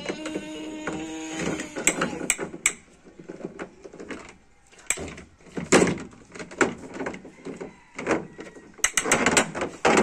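Plastic toy vehicles clattering and knocking against each other and a plastic truck-bed liner as a baby handles them: irregular clicks and knocks, with a quieter stretch midway.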